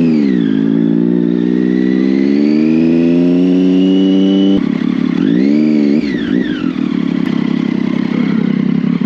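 Sport motorcycle engine revving: a quick blip at the start, then engine speed climbing steadily for about four seconds before it drops off suddenly. A second short rise and fall follows, then a steady rushing drone.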